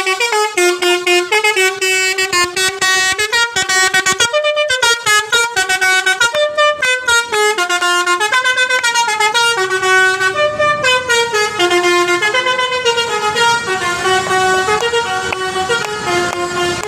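Bus's basuri telolet horn, an Indonesian multi-tone musical horn, playing a melody: a run of horn notes stepping up and down in pitch, with one brief break about four seconds in. A low rumble joins under the tune in the last few seconds.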